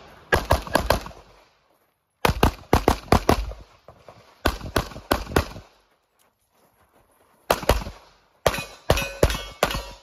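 Strings of rapid handgun shots during a practical pistol stage, fired in quick runs of two to six shots with pauses of one to two seconds between strings.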